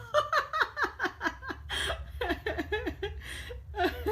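A person laughing in a long run of quick, short bursts.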